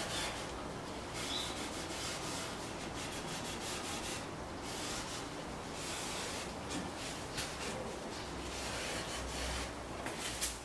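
A cloth rubbed by hand in repeated quick strokes over lauan plywood shelves, typical of wiping on an oil finish.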